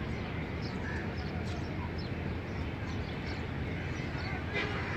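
Outdoor background noise, a steady low rumble, with scattered short bird chirps and a brief sharper sound near the end.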